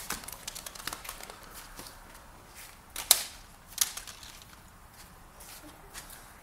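Faint background with scattered small clicks, then two sharp knocks a little under a second apart about three seconds in.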